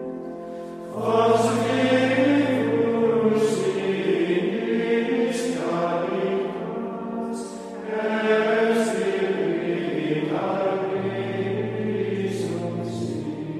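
Choir singing Gregorian chant in long, slowly moving phrases, with a low held note beneath some of them and short pauses for breath about a second in and again near the eight-second mark.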